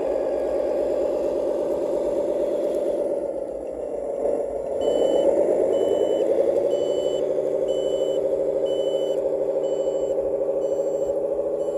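Sound module of a scale RC Iveco 6x6 dump truck playing a diesel engine through its speaker: the engine note dips about four seconds in, then picks up again and holds steady. Soon after, a reversing beeper starts sounding at an even pace, about one beep every three-quarters of a second.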